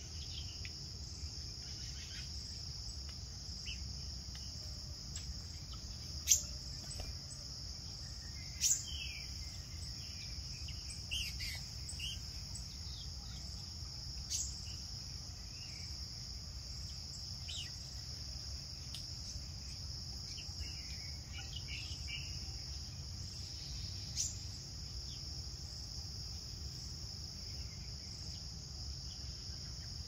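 Steady high-pitched chorus of forest insects, with brief sharp bird calls scattered through, the loudest about six and nine seconds in.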